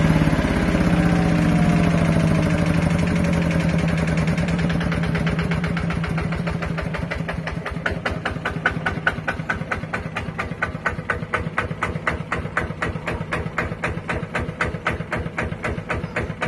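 Kubota RT120 Plus single-cylinder diesel engine running, its revs falling over the first several seconds. It settles into a slow idle in which each firing stroke comes through as a separate, even knock, several a second.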